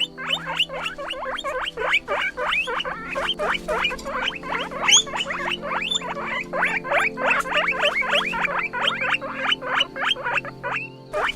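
Guinea pig squeaking: a fast, continuous string of short, high squeaks, each sliding down in pitch, about four a second.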